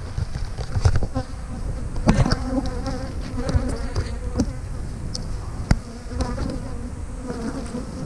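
Honeybees buzzing in flight around open hives, a wavering hum that swells and fades as bees pass close. A low rumble runs underneath, with a couple of sharp knocks.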